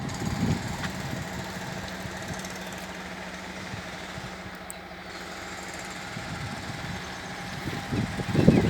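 Steady low mechanical hum of a running engine or motor, growing louder with irregular sounds near the end.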